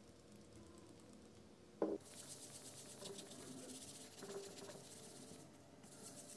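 Sanding pad rubbed back and forth over the painted steel blade of a meat cleaver: a faint, scratchy rasp that starts about two seconds in. Just before the rubbing starts there is a short knock.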